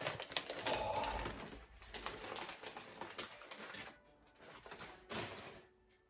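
Packing material crinkling and crackling as a specimen is unwrapped by hand, a dense run of crackles and clicks that eases off about four seconds in, with one more short burst near the end.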